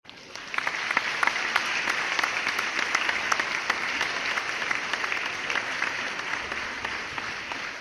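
An audience applauding: many hands clapping, starting within the first half second and easing off slightly near the end.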